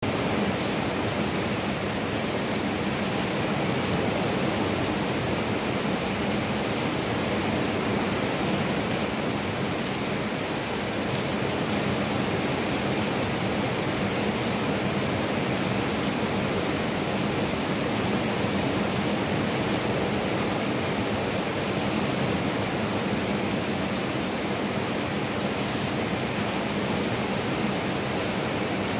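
Heavy thunderstorm rain falling steadily, an even hiss that holds the same level throughout.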